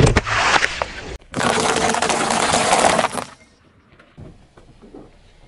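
Car tyre rolling over small plastic-capped juice cartons, crackling and crunching as they burst and squirt. After a short break, a dense crunching crackle runs for about two seconds and stops abruptly, leaving only faint ticks.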